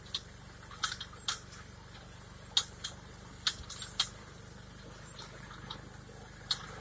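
Engine of a 28 hp Massey Ferguson 6028 tractor running steadily at a distance, a low even hum, under a dozen or so irregular sharp ticks and taps close to the microphone.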